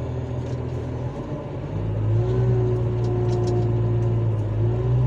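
Heavy-equipment diesel engine running, its note changing and growing louder about two seconds in as it takes more throttle, then holding steady with a faint whine alongside.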